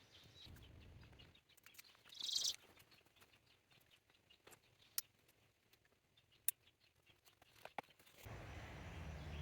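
Quiet outdoor ambience on a forest trail, with a short high chirp about two seconds in and a few faint clicks. A steady low rumbling noise sets in near the end.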